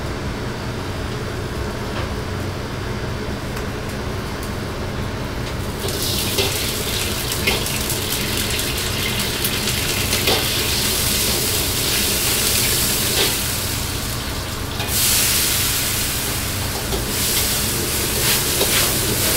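Restaurant gas wok range: a steady roar of the burner and exhaust hood, then from about six seconds in a loud sizzling hiss at the hot wok, with clinks of the metal ladle against the wok. The hiss drops away briefly about fifteen seconds in, then returns.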